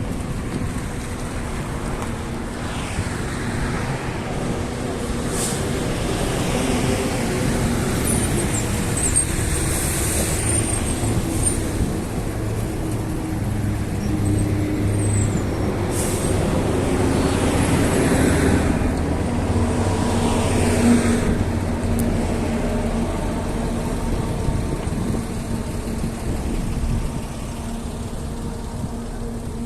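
Street traffic: vehicles driving past one after another over a steady engine rumble, with a brief high squeal about ten seconds in.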